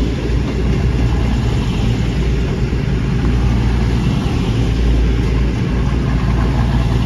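Two coupled CrossCountry diesel multiple units, a Class 220 Voyager and a Class 221 Super Voyager, running close by with their underfloor diesel engines giving a loud, steady low drone.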